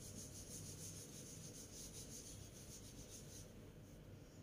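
Whiteboard eraser wiped rapidly back and forth across a whiteboard: a faint, rhythmic rubbing of about five or six strokes a second that stops about three and a half seconds in.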